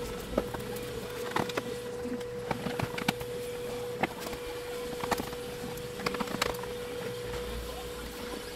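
Irregular clicks and taps of a screwdriver and small screws as screws are taken out of an LED TV's plastic back cover and set down on the bench, over a steady hum.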